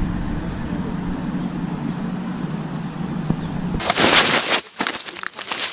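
A vehicle engine idling with a steady low hum. About four seconds in it cuts off for a sudden loud rustle, followed by irregular crackling clicks.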